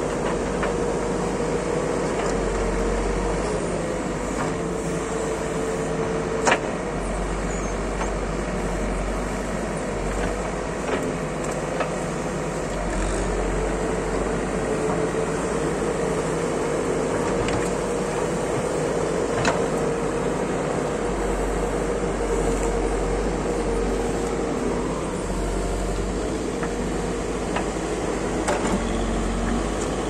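Backhoe loader's diesel engine running steadily while the rear backhoe digs soil, its note wavering a little with the work, with a few sharp knocks, the loudest about six seconds in.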